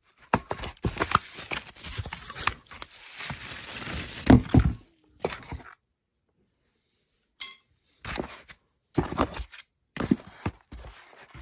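Standing-desk frame parts being unpacked from a cardboard box: packing foam and cardboard rustling and scraping, with metal parts clinking. After a pause of about two seconds comes a sharp click, then several short bursts of handling.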